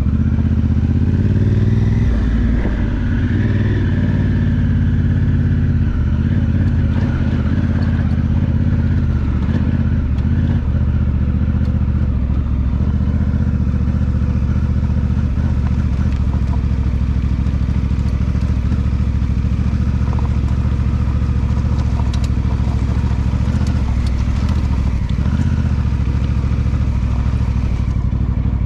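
2018 Honda Africa Twin Adventure Sports DCT's parallel-twin engine running steadily as the bike rides along a rough dirt track.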